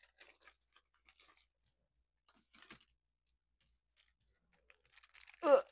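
Faint, scattered rustling and light clicks of paper and plastic sticker sheets being handled and smoothed down by hand. A brief voiced sound near the end.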